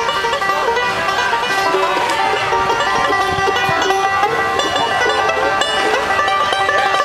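Five-string bluegrass banjo picked in a quick, steady run of plucked notes.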